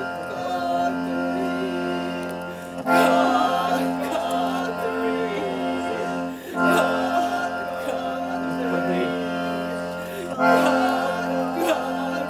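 Music with singing over a steady held drone, a louder phrase starting again about every four seconds.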